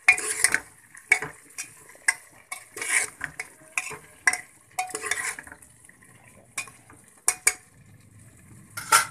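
A spoon stirring and scraping mutton, onions, tomatoes and spices in a pressure cooker, with irregular scrapes and sharp clinks against the metal pot, over a light sizzle of the oil.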